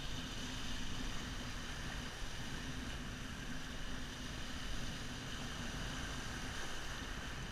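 Ocean surf washing and foaming over the rocks, a steady rush of water, with wind buffeting the microphone.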